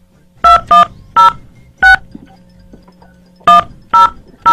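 Phone keypad dialing tones: about seven short dual-tone beeps as a number is keyed in, four in quick succession, a pause, then three more.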